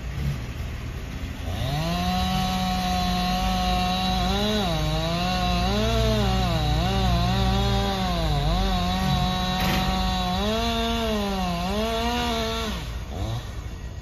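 Wood chipper's engine revving up to speed, then repeatedly dipping in pitch and recovering as branches are fed through and bog it down, before winding down near the end.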